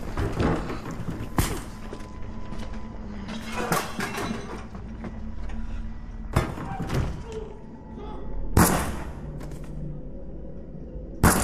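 Heavy thuds over a low steady drone, five of them roughly two to three seconds apart, the last two the loudest.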